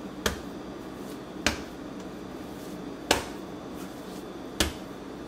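Very wet, sticky bread dough being thrown down onto a granite countertop four times, about a second and a half apart, in the slap-and-fold kneading method; each throw is a sharp slap, the third the loudest.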